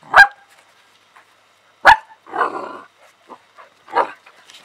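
Alaskan malamute puppies barking in play: three short, sharp barks about two seconds apart, the second followed by a longer, rougher sound.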